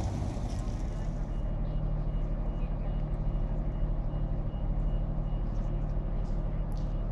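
Steady low drone of heavy machinery running on a tunnel construction site, with a constant hum and a faint thin whine for a couple of seconds about a second in.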